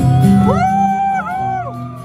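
Live rock band playing an instrumental passage: a lead line of long held notes bends up and slides back down in pitch over bass and guitar chords, heard in a large hall.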